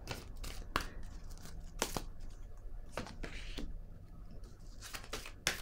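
Tarot cards handled on a wooden tabletop: a card drawn from the deck and laid down, with a few scattered light clicks and slides of card against card and wood.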